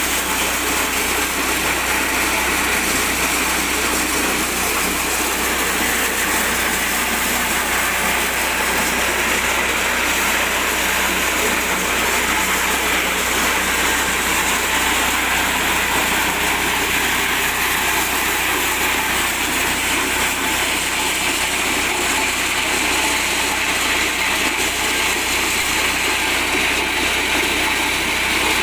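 Small 8 hp petrol engine running steadily, driving a mini corn sheller, the machine noise even and unbroken.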